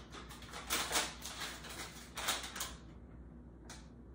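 Paper rustling and crinkling as a sheet of assembly instructions is handled and turned over, in a run of crackly bursts that die down after about three seconds.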